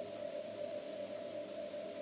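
Steady interior noise of the Orion spacecraft capsule, recorded by its onboard camera: an even hiss with a steady mid-pitched hum.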